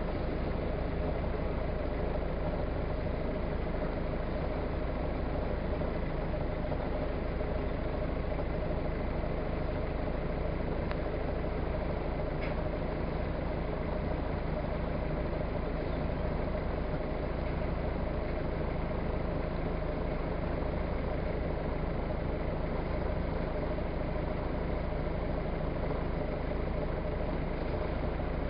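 Motorboat engine running steadily, heard from on board while the boat is under way.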